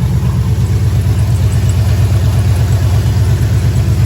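LS1 V8 engine idling through new Kooks long-tube headers shortly after a cold start, with a steady, pulsing exhaust note.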